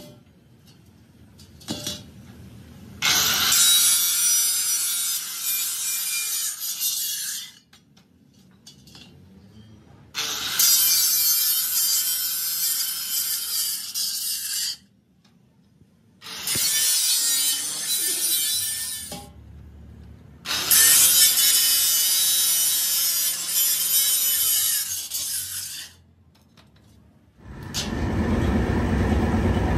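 Angle grinder with a cutting disc cutting through a rolled sheet-steel ring: four cuts of a few seconds each, with short pauses between. Near the end a steadier, lower-pitched machine noise takes over.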